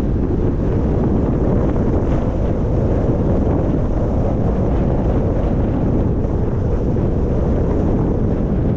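Steady low rumble of wind buffeting the microphone, unbroken and without distinct events.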